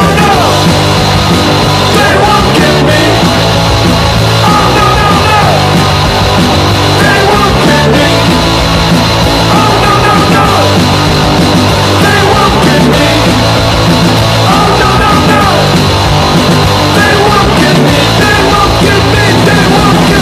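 Loud rock music with a sung vocal line, steady bass and drums.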